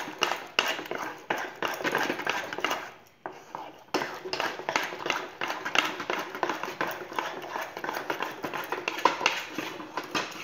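A spatula scraping and knocking against a granite-coated saucepan in quick, continuous stirring strokes through thick cooked gram-flour and buttermilk batter, with a brief pause about three seconds in. The batter has thickened enough to pull away from the sides of the pan, the sign that it is nearly cooked.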